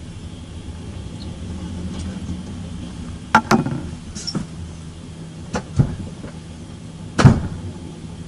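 Steady low hum inside a standing double-decker passenger train's compartment. It is broken by several sharp knocks and bangs: two close together about three and a half seconds in, two more near six seconds, and the loudest about seven seconds in.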